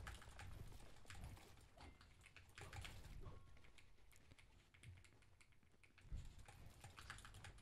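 Faint, quick, irregular keystrokes on a MonsGeek M1 HE-SP keyboard with magnetic Hall-effect switches, keys pressed in rapid gaming inputs.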